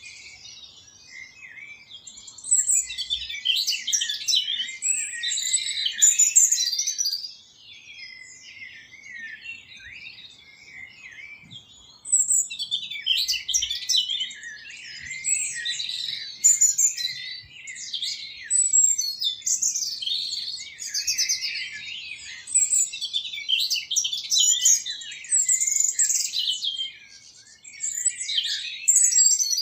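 A dense chorus of small songbirds chirping and twittering in quick, high-pitched phrases that overlap. It swells and eases in waves, with a quieter stretch from about seven to twelve seconds in.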